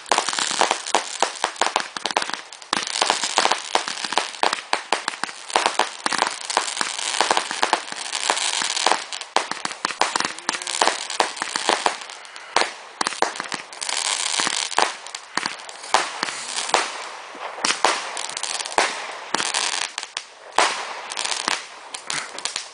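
Homemade firework made of about fifty big and small roman candles bundled together, going off in a rapid, continuous run of bangs and pops over constant crackling.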